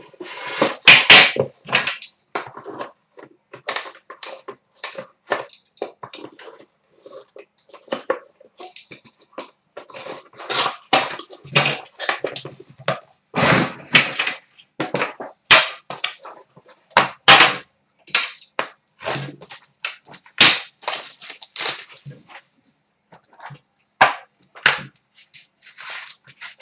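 Hands unwrapping and opening a sealed trading-card tin: plastic shrink wrap crinkling, then the metal tin's lid and the card box inside being handled. Many short, irregular rustles, clicks and knocks, some loud.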